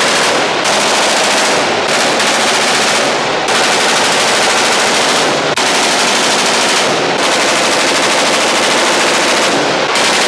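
Loud automatic gunfire in long continuous bursts, broken by a few short pauses.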